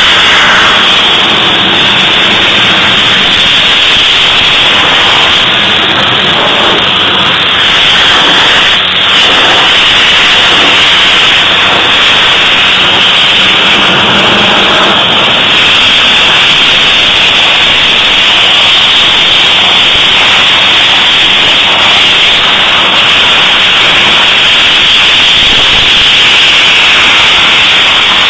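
Vapour blasting nozzle hissing steadily as it sprays a water and abrasive slurry onto a brake shoe's lining, with a faint low hum underneath.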